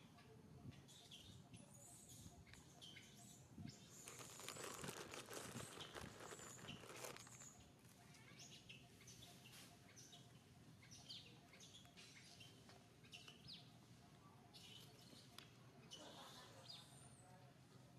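Faint, scattered high-pitched chirps and squeaks of small animal calls, with a stretch of rustling noise about four to seven seconds in.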